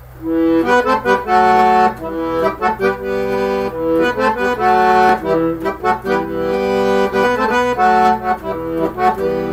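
Chromatic button accordion (a red Weltmeister) playing the instrumental introduction to a song: sustained melody chords over an evenly pulsing bass accompaniment.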